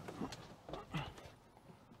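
A handful of irregular knocks and scuffs, like footsteps and handling, in the first second or so.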